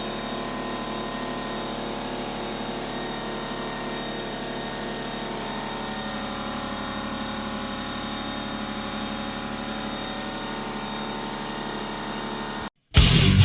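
A motor-driven shop tool running at a steady speed: a constant hum made of several unchanging tones over a noisy rush. It cuts off abruptly near the end.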